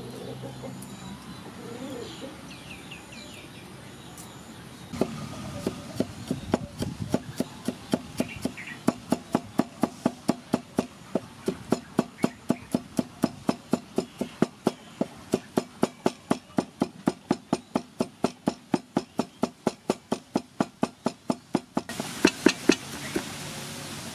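Cleaver chopping garlic on a thick round wooden chopping block: a long run of steady, rapid knocks, about three or four a second, starting about five seconds in, with a few louder knocks near the end.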